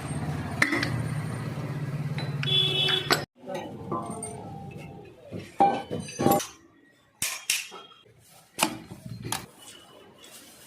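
A steady low hum that cuts off about three seconds in, followed by a series of sharp metallic clinks and knocks spaced irregularly, some ringing briefly.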